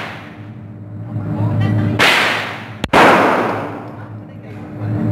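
Two gunshots at a shooting range, a little under a second apart, each with a long fading echo, over a steady low hum.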